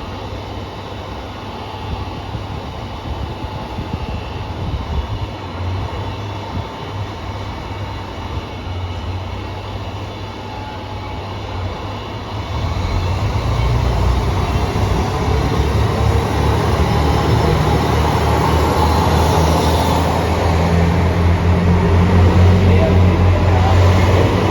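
Two-car KiHa 200 diesel railcar unit pulling out: its diesel engine hum grows louder about halfway through as the train throttles up and moves off. The uploader reports an abnormal noise from car KiHa 200-1551 throughout.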